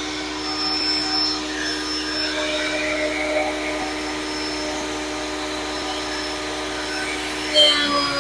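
Grizzly G0958 8-inch jointer/planer combo running in planer mode, a steady motor and cutterhead whine. Near the end there is a brief louder burst and the pitch drops.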